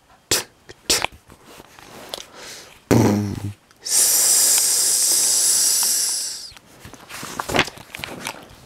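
A person's mouth-made 'ssss' hiss, held for about two and a half seconds, imitating gas leaking from a punctured tank. Before it come a few sharp clicks and a short low voiced sound.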